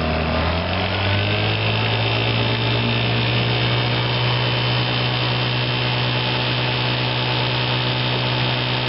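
Evinrude Fisherman 5.5 hp two-stroke twin outboard motor running in forward gear. Its revs pick up about a second in, then it runs steadily.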